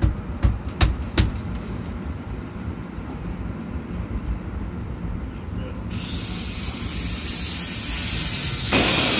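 Four sharp knocks in the first second and a half, then about six seconds in a loud steady hiss sets in, with a high whine that rises and then holds level, and a brief louder rush near the end.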